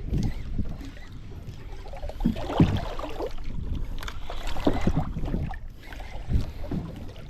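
Water sloshing and slapping against the hull of a small boat in uneven strokes, strongest twice near the middle, with wind rumbling on the microphone.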